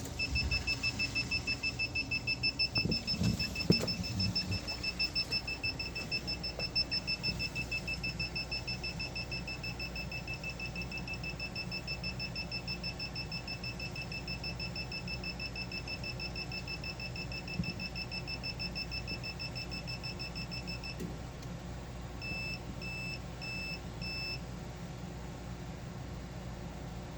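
Sump pump alarm beeping: a high electronic tone pulsing rapidly for about twenty seconds, then stopping and giving four short beeps. A steady low hum runs underneath.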